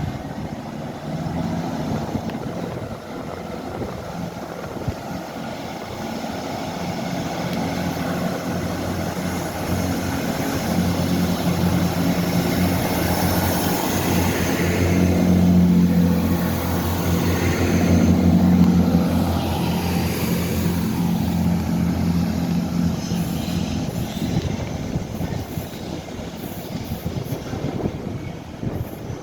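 Train with its engines humming steadily, growing louder to a peak about halfway through with a whine that bends in pitch, then fading away as it moves off.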